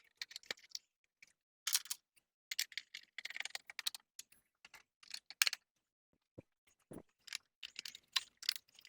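Irregular sharp clicks, taps and short rattles of parts and tools being handled on a riding mower's engine during reassembly, coming in scattered clusters.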